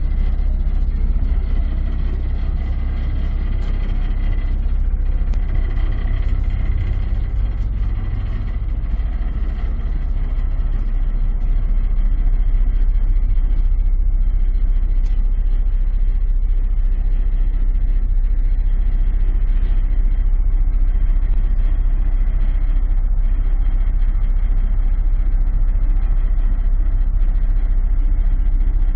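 Ferry's engines running with a steady low drone, heard from the open outer deck, growing a little louder about eleven seconds in.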